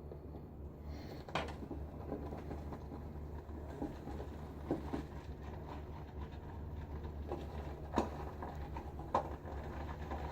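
Shaving brush being worked around a bowl of shaving soap to build a lather: faint, soft squishing and scraping, with a few sharp clicks of the brush against the bowl. A steady low hum lies underneath.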